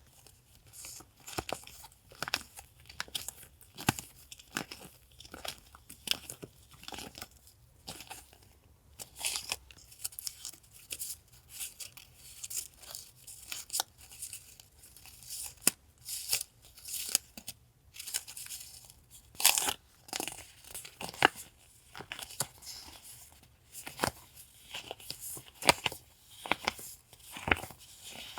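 Paper and plastic packaging from a box of stickers and journaling paper being handled and unpacked by hand: irregular short rustles, crinkles and taps, a few of them sharper.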